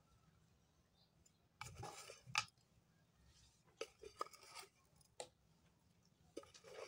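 Faint scattered clicks and scrapes of a spoon against a spice container and a steel bowl as crushed red chili is spooned onto minced chicken: a short cluster about two seconds in, then a few single clicks.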